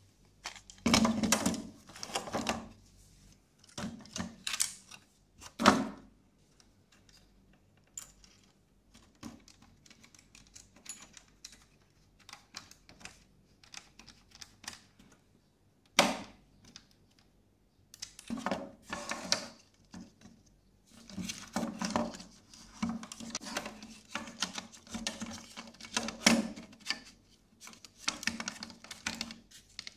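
Plastic case parts and circuit board of a 1979 mini TV being handled and fitted together by hand: scattered clicks, knocks and rattles. There are sharp knocks about a second in, near six seconds and at sixteen seconds, and busy clicking through the last ten seconds.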